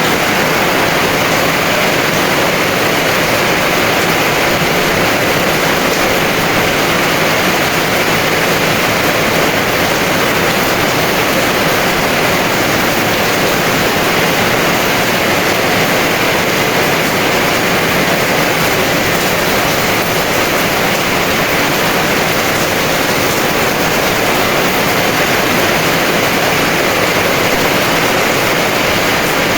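Heavy rain pouring steadily, an even dense hiss with no distinct drops or breaks.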